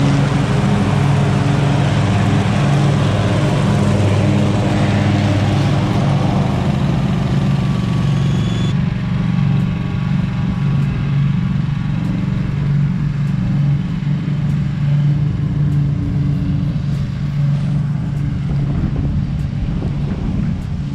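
Scag V-Ride stand-on mower engine and a backpack leaf blower running steadily together. The blower's airy rush is strong at first and drops away abruptly about nine seconds in, leaving mostly the steady engine drone.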